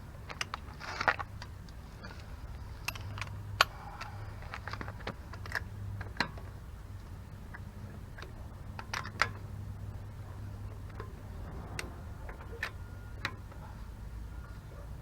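Hand tools and metal brake parts being handled: about a dozen irregular sharp clicks and clinks over a steady low hum.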